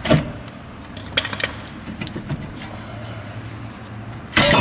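Steel pry bar clicking and knocking against a rusty rear brake caliper, with a louder short metal clatter near the end.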